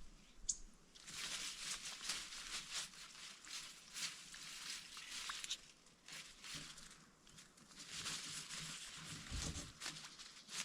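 Two spells of dry rustling and crackling, each a few seconds long, full of small clicks.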